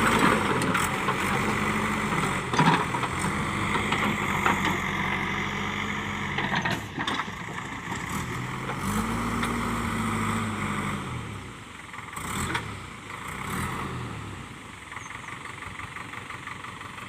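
JCB 3DX backhoe loader's diesel engine working, its revs rising and falling as the hydraulics dig and dump, with a few sharp knocks in between. It fades off in the last few seconds.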